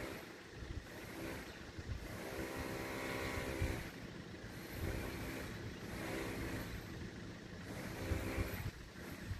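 FS64 level crossing bells ringing, a steady metallic tone that swells and fades every second or two, with wind on the microphone.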